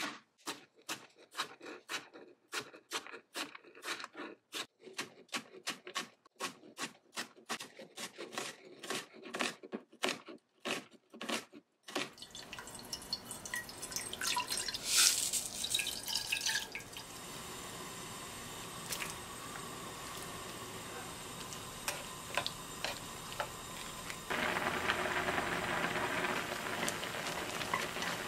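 A kitchen knife chopping quickly on a cutting board, about three strokes a second, cutting potatoes and onion into strips. About halfway through it gives way to a steady watery hiss of a pan of boiling water, with julienned potato strips tipped in.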